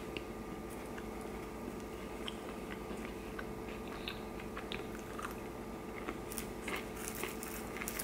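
A person chewing food close to the microphone: soft, irregular mouth clicks and small crunches that come more often near the end. A steady low hum runs underneath.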